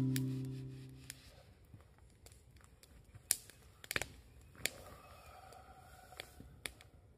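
Acoustic guitar music fading out in the first second, then a wood campfire crackling with a few scattered sharp pops.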